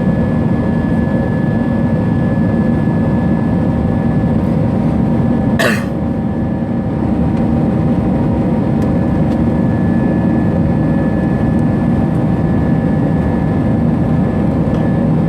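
Airbus A320 jet engines running steadily with constant whining tones under the airflow noise, heard from inside the cabin during the climb after takeoff. A brief sharp sound cuts through about six seconds in.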